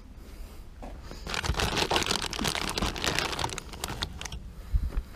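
Close-up rustling and crinkling of things being handled and rummaged right by the microphone, for about three seconds starting a second in, then one low thump near the end.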